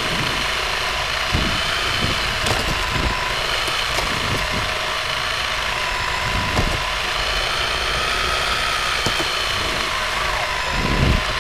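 Radio-controlled car's motor whining steadily as it drives on ice, the pitch drifting up and down a little, over a constant rumble, with a few short knocks.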